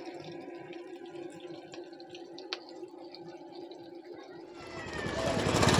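Chicken pakodi deep-frying in a kadai of hot oil: a steady sizzle with scattered faint pops. Near the end a louder rushing noise builds up.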